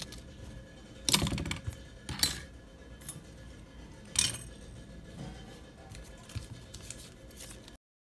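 Metal scissors and tweezers clattering as they are handled and set down on a desk, with three sharp clinks about one, two and four seconds in, over faint background music.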